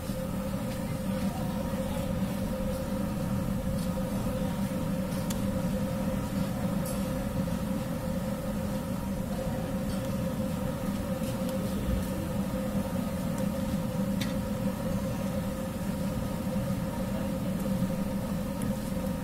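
A steady mechanical hum with a constant low drone runs under a faint hiss of jilapi frying in a wide pan of hot oil. A few light clicks sound now and then.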